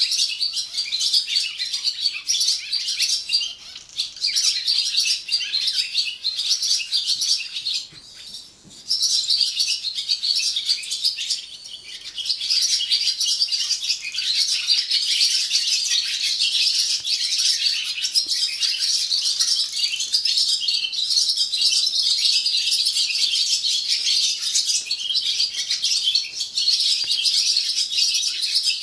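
Barn swallows singing at dawn: a dense, continuous twittering chorus of several birds, with a few brief lulls in the first twelve seconds.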